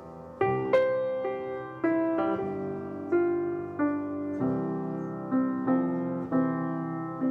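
Piano playing a slow melody over held chords, a new note or chord struck every half second or so, each ringing and fading before the next.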